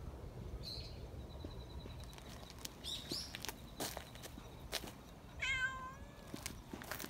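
Young cats meowing: a few short, high-pitched calls and one longer, shrill meow about five and a half seconds in, with scattered light clicks.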